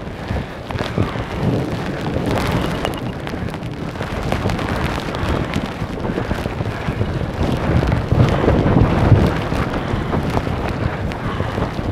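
Heavy rain pouring in strong wind gusts, the wind buffeting the microphone, with a louder low surge about eight seconds in.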